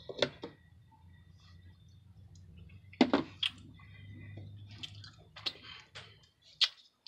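Scattered sharp clicks and knocks as a can of sweetened condensed milk is handled against a blender jar, the loudest about three seconds in, over a low steady hum that stops near the end.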